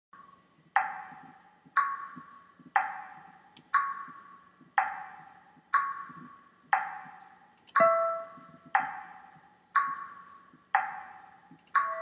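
Soundtrack music: a single pitched struck note repeated about once a second, each ringing out and fading. A lower, longer-held note joins about eight seconds in and again near the end.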